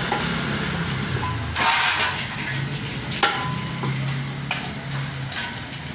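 Heavy fish cleaver knocking on a wooden chopping block: one sharp knock about three seconds in, a few lighter knocks after it, and a brief scraping rush before it, over a low steady hum.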